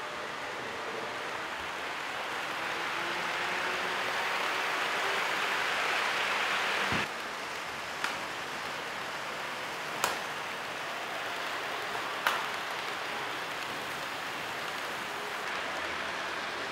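Model trains running on layout track: a steady rolling rush that swells for several seconds and cuts off suddenly, then three sharp clicks about two seconds apart.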